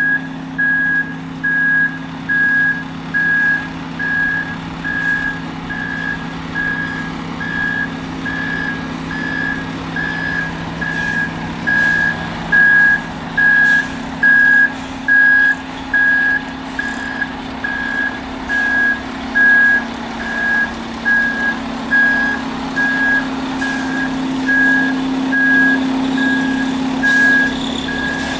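Concrete truck's reversing alarm beeping steadily at one pitch, about once a second, while the truck backs up. The truck's diesel engine runs with a steady low drone underneath.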